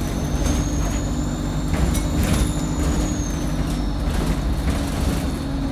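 Inside an ADL Enviro 200 single-deck bus: the diesel engine drones steadily, with a faint high whine that rises and then falls away, and a couple of knocks or rattles from the body about two seconds in.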